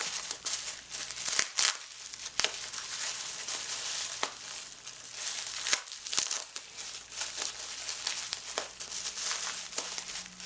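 Packing material being crinkled and rustled by hand while a package is unwrapped, with irregular small clicks and crackles throughout.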